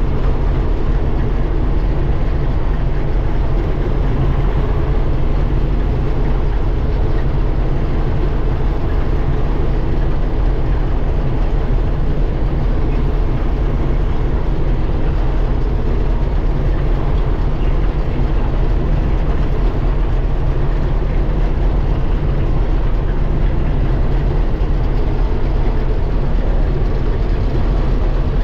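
Combine harvester running steadily: a dense, unbroken engine and machinery drone with a deep hum.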